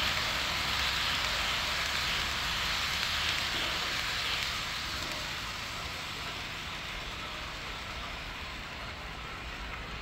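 HO-scale model train rolling past on its track: the model EMD GT26CW diesel locomotive and its passenger coaches, a steady rushing noise of small wheels running on the rails that slowly fades as the train moves away.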